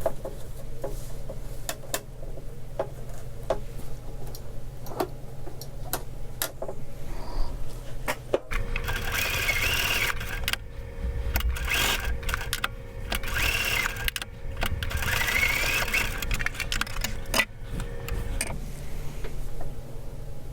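Sewing machine stitching a piece of Velcro onto fabric in several short runs of a second or two each, starting and stopping, through the second half. Before that there are scattered light clicks of the fabric and machine being handled.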